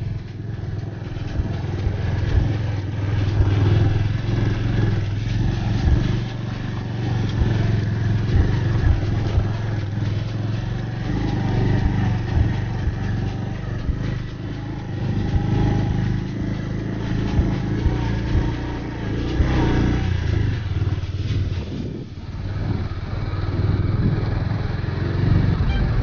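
Motorcycle engine running steadily while riding, with road and wind noise.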